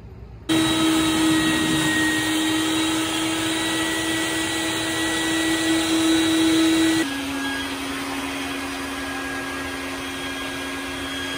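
Bucket Head wet-dry vacuum running steadily, sucking out the dirty bilge through its hose. Its motor hum starts about half a second in and drops to a slightly lower pitch and level about seven seconds in.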